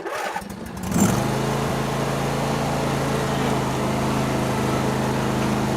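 Riding lawn mower's small engine running at a steady speed, cutting in abruptly about a second in.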